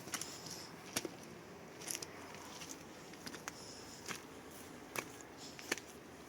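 Scattered sharp clicks and knocks, a few seconds apart, with brief scraping rustles between them.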